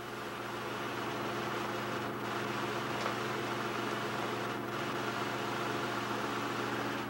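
A steady low hum over a broad hiss, fading up over the first second and then holding level.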